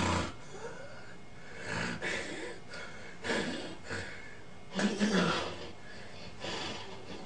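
A sleeping person snoring: a series of noisy, irregular breaths about every second or so, the loudest about five seconds in. It is the sound of the upper airway vibrating as it narrows during sleep.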